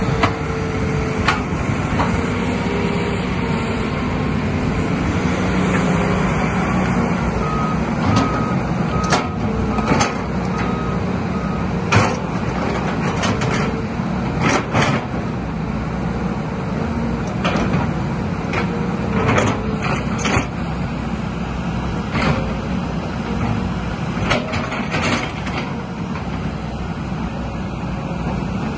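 Hitachi ZX hydraulic excavator's diesel engine running steadily while its bucket scrapes and knocks on loose rock, with frequent sharp clacks of stone. About eight seconds in, a short run of evenly spaced beeps lasts roughly four seconds.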